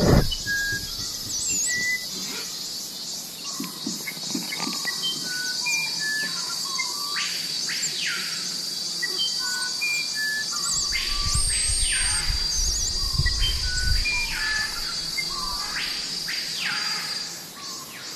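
Steady high-pitched insect drone with scattered short chirps and whistled calls over it. A low rumble, like wind on the microphone, comes in about halfway through.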